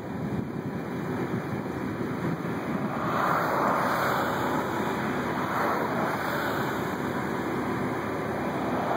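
Wind blowing over the microphone in a steady rush, swelling in gusts about three seconds in and again a few seconds later.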